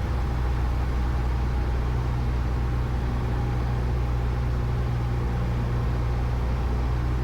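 Cessna Skyhawk's piston engine running steadily at reduced approach power, a constant low drone mixed with wind and airframe noise, heard from inside the cabin.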